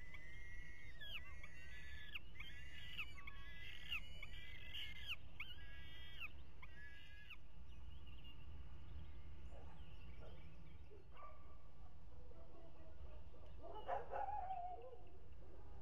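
Falcon chicks calling from the nest: a quick run of repeated calls for about the first seven seconds, then scattered fainter calls and one louder call a couple of seconds before the end, over a steady low background rumble.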